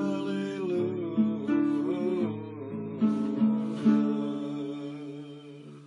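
Acoustic guitar strumming chords in a short instrumental break of a gospel song, the chords dying away near the end.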